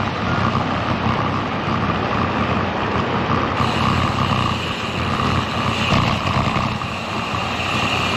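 Strong wind buffeting a bike-mounted GoPro's microphone, mixed with the Cervelo Caledonia road bike's tyres rolling on rough chip-seal pavement: a steady rushing rumble.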